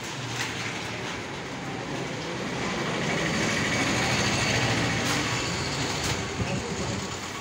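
A vehicle passing: a steady rumble and hiss that builds about two seconds in, peaks in the middle and eases off again.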